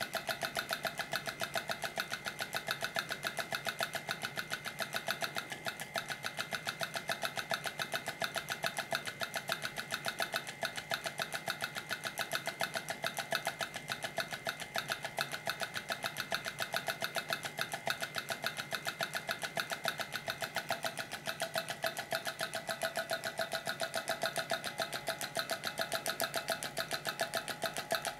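Homemade electromagnetic beat machine, its coil switched by a reed switch, rattling out a fast, steady, even beat as the driven arm keeps striking its improvised percussion, with a metallic ring over the strokes. The lower ringing tone grows stronger in the last several seconds.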